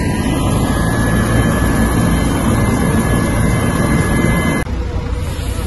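Turbine helicopter running on its pad: a loud steady rumble with a thin high turbine whine over it. About four and a half seconds in the sound drops abruptly to a lower rumble without the whine.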